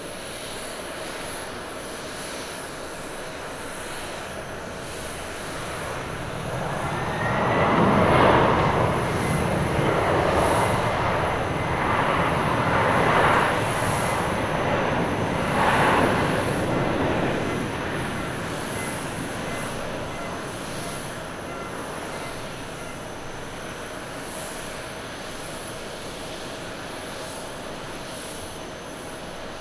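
ANA Boeing 767 twin-jet airliner rolling out just after touchdown, its engines going into reverse thrust. A faint rising whine about seven seconds in leads into a loud roar lasting about ten seconds that swells and eases a few times, then falls back to a steady engine hum as the jet slows on the runway.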